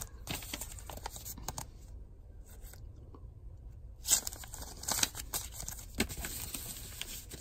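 Clear plastic card sleeves and a paper envelope crinkling and rustling as baseball cards are handled, with sharp crackles and a quiet pause of about two seconds in the middle.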